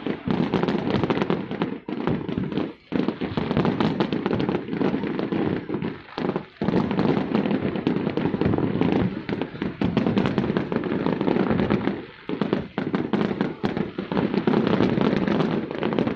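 Fireworks barrage: a dense, nearly continuous run of overlapping bangs and crackling, broken by a few brief lulls.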